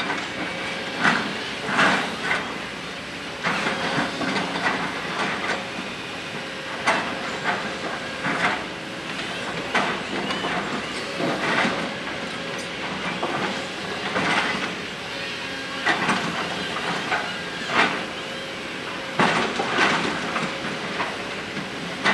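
Kobelco 200-class hydraulic excavator raking its bucket teeth against a rock cliff face. Irregular scrapes and clattering knocks of rock breaking loose and falling come every second or two over the steady running of the machine.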